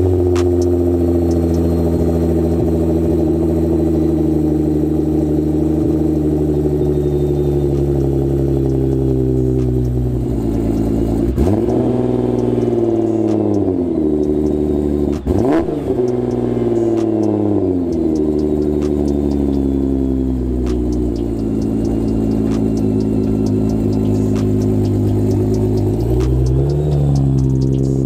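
Heavily tuned 2014 Nissan GT-R's twin-turbo V6 running just after start-up. It idles steadily at first, then is revved a few times in the middle, its pitch rising and falling with each blip, and climbs again near the end.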